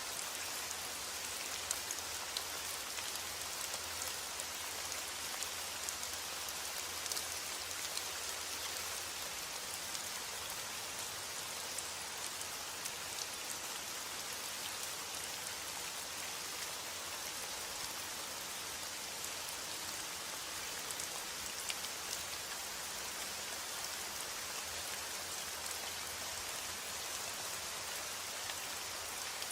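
Steady rain falling, an even hiss with scattered small drop clicks.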